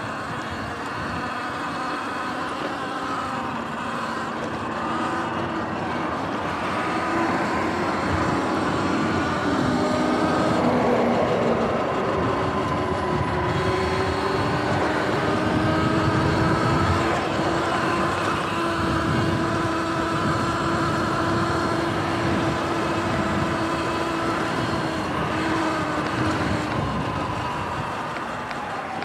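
Sur-Ron electric dirt bike riding on grass and pavement: the electric motor's whine holds a steady pitch for long stretches and rises and falls as the speed changes, over a continuous rush of tyre and wind noise.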